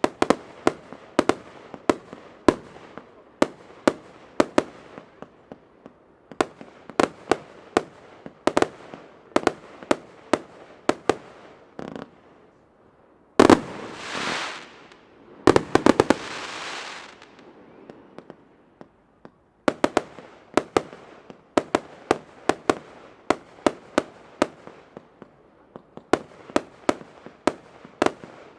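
Professional fireworks display: shells bursting in a rapid string of sharp bangs, a few a second. About halfway through, after a brief lull, comes a loud spell of hissing and crackling with densely packed reports.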